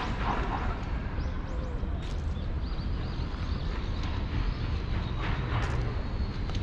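City street ambience: a steady low rumble of traffic, with a few short high bird chirps.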